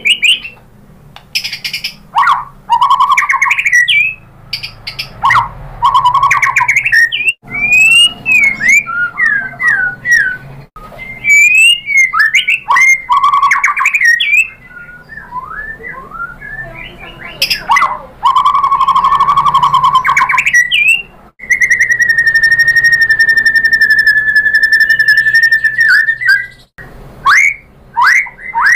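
White-rumped shama (murai batu) singing a loud, varied song of whistled phrases, quick pitch glides and rapid buzzy trills, packed with learned imitations. Past the middle it holds one long, nearly steady whistle for about five seconds before breaking back into quick phrases.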